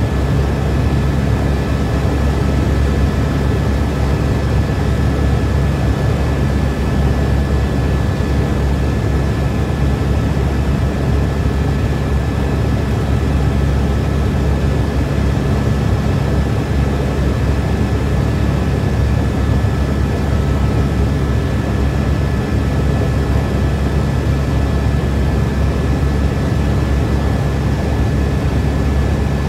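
News helicopter in flight, heard from inside the cabin: a loud, steady rotor and engine drone with a thin high whine over it.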